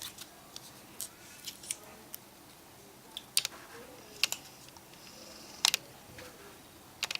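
Scattered small, sharp clicks and taps of repair tools and small parts being handled on an iPhone 5C during reassembly, about eight in all, irregularly spaced.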